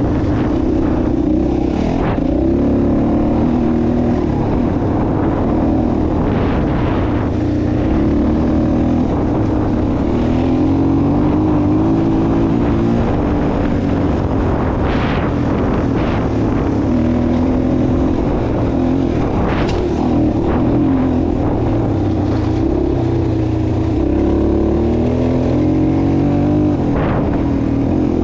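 A motor vehicle's engine running close by, its pitch repeatedly rising and falling as the throttle opens and eases.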